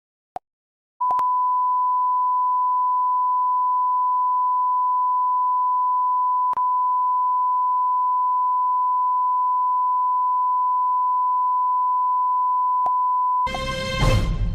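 Steady 1 kHz reference tone of the kind broadcast with TV colour bars, one unbroken beep lasting about twelve seconds after a short click. Music cuts in near the end.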